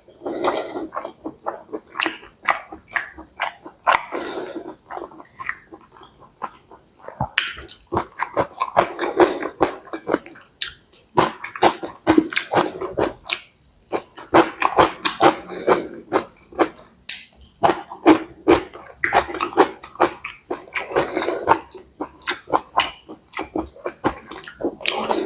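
Close-up chewing of pad see ew (wide rice noodles stir-fried with pork and crisp Chinese kale), with quick wet mouth smacks and clicks following one another throughout.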